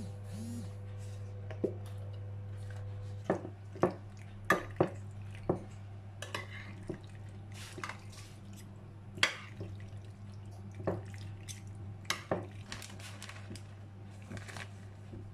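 Metal utensil clinking against a glass baking dish while pasta is stirred with tomato sauce: about a dozen sharp clinks at irregular intervals, over a steady low hum.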